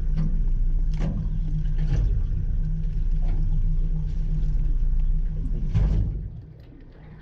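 Fishing boat's engine running with a steady low hum and a few knocks on the hull, then dropping away about six seconds in.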